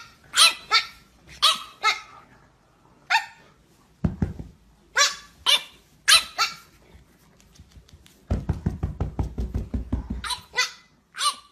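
French bulldog puppy barking in short, high-pitched yaps, about a dozen, mostly in quick pairs. A low, fast-pulsing rumble runs for about two seconds before the last few yaps.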